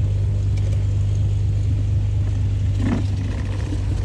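Piston engine of a Beechcraft Baron B55 running steadily, heard inside the cockpit as a low, even drone.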